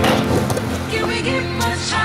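Music with sustained chords over a steady bass line, with a couple of sharp percussive hits.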